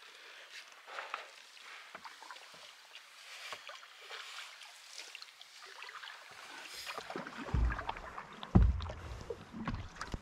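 Paddling a folding open canoe on open water: faint paddle strokes, small splashes and drips, then louder low knocks and rumbling in the last few seconds.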